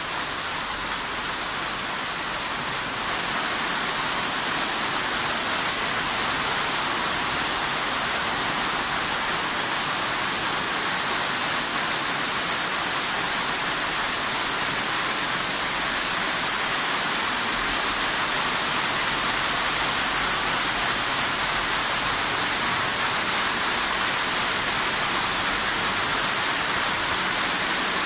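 Heavy artificial rain from an indoor rain-test rig pouring onto a tent: a dense, steady hiss of falling water that gets slightly louder about three seconds in.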